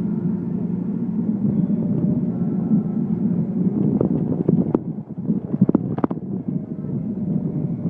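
Steady road and engine rumble inside a moving car's cabin, with a few short clicks or knocks about four to six seconds in.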